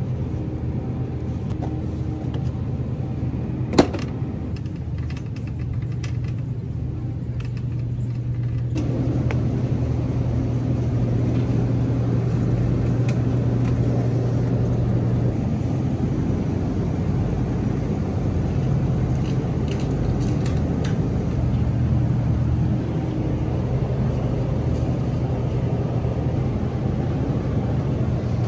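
Steady low hum of a store's ventilation and refrigerated display cases, with one sharp click about four seconds in; the background grows fuller and louder from about nine seconds in.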